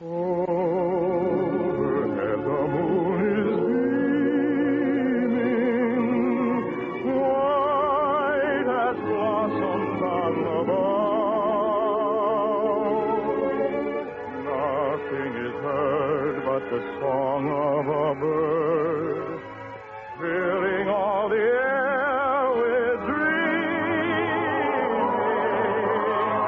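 Operetta singing with strong vibrato over an orchestra, heard on a thin old radio-broadcast recording. The music eases briefly about twenty seconds in, then swells again.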